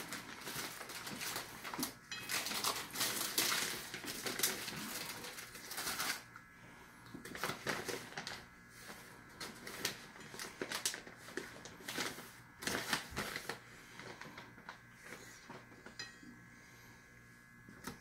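Plastic bag of shredded cheese crinkling and rustling as a hand reaches in for cheese. The rustles come in irregular bursts, busier in the first six seconds and sparser after.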